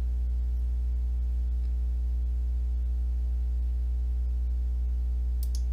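Steady low electrical hum with a ladder of evenly spaced overtones, a constant background of the microphone recording. A couple of faint mouse clicks come near the end.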